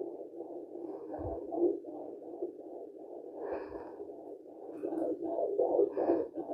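Fetal heartbeat played through a handheld Blue Echo Care fetal Doppler's speaker: a fast, even, rhythmic pulsing at about 151 beats per minute, roughly two and a half beats a second. Two brief low thumps come through, about a second in and near four seconds in.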